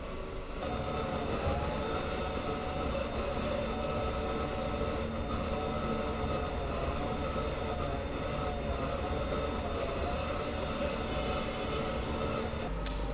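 Drive motors of a remote-operated camera platform running steadily as it rolls, with a whine whose pitch wavers gently, over a low rumble.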